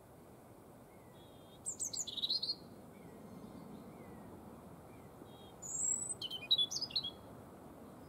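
European robin singing: two short phrases of high, quick-changing notes, about two seconds in and again about six seconds in. Fainter short whistles of other birds come between the phrases.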